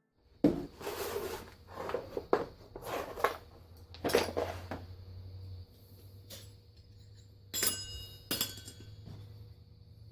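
A series of irregular clinks and knocks from hard objects being handled, a few with a short metallic ring, over a faint steady hum.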